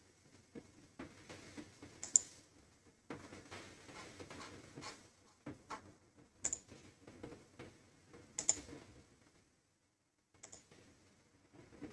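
Irregular clicking and tapping of a computer keyboard and mouse, with a few sharper, louder clicks. The sound cuts out completely for under a second a little before the end.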